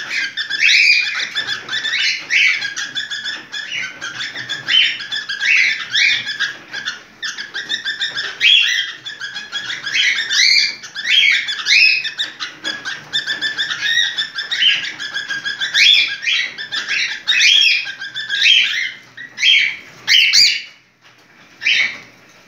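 Cockatiel in breeding condition giving its courtship song: a fast, unbroken run of chirps and whistles that stops about a second and a half before the end.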